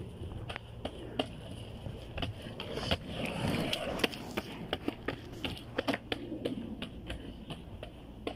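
Skateboard rolling on an asphalt path: a steady low rumble of the wheels with many sharp, irregular clicks and knocks, and a louder stretch of rolling noise about three seconds in.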